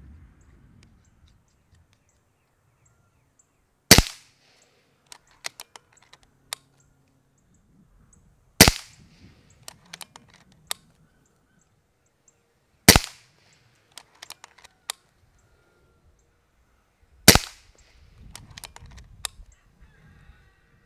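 Kral Puncher Breaker .22 PCP bullpup air rifle firing four sharp shots, one about every four and a half seconds. Each shot is followed by a few light clicks as the action is cycled to load the next pellet.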